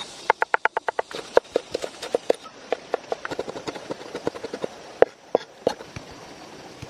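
Cleaver chopping garlic and red chilies on a cutting board: a fast, even run of knocks, about ten a second, then a slower, uneven string of chops that stops near the end.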